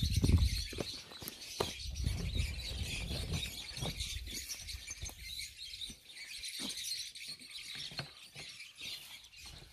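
Small birds chirping continuously in the background, with a few scattered light clicks and knocks and a brief low rumble about a second in.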